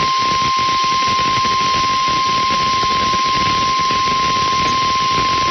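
NOAA Weather Radio's 1050 Hz warning alarm tone, a single unbroken steady tone over a constant hiss of static. It is the attention signal that comes before an Emergency Alert System weather warning is read out.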